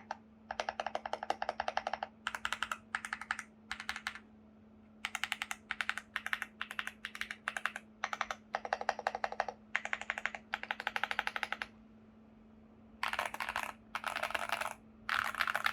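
Finalkey V65 r2 mechanical keyboard with stock Betty tactile switches on an FR4 plate, tape-modded, typed on fast in bursts of rapid clicks with short pauses between them. The typing stops for about a second two-thirds of the way through, then comes back in a few denser bursts. A faint steady hum sits underneath.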